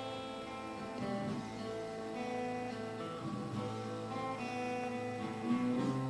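Music: acoustic guitar strumming chords, with the chords changing about once a second and no singing.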